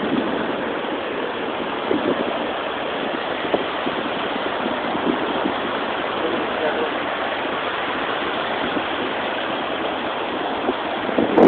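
Gulf surf washing steadily onto a sandy beach, an even hiss of small breaking waves.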